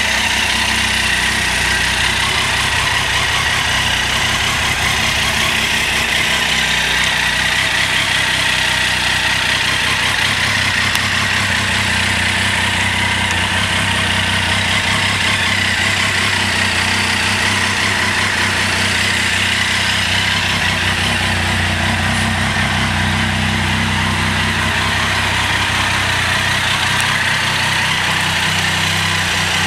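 Triumph Tiger 800 XRT's three-cylinder engine idling steadily, with no revs.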